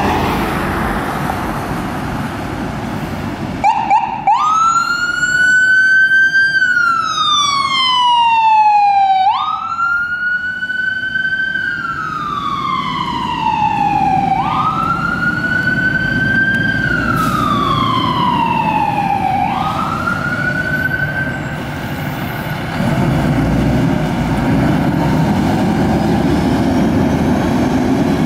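Ambulance electronic wail siren starting up as it pulls out. It sweeps up in pitch and slowly falls again, about every five seconds, four times, then stops. Traffic noise from a passing car comes before it, and a deeper heavy vehicle engine rumble swells near the end.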